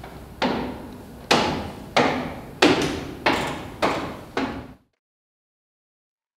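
A series of about seven loud, heavy knocks, each ringing out in reverberation and coming slightly faster toward the end. The sound then cuts off abruptly.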